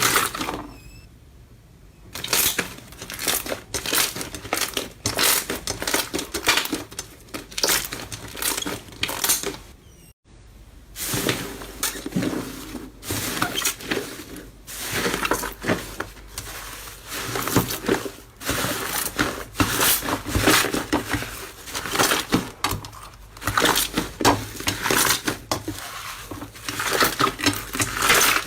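Slime being squeezed and worked by hand, giving a dense, irregular run of crackling and crunching clicks. The sound drops away briefly about a second in and again after about ten seconds.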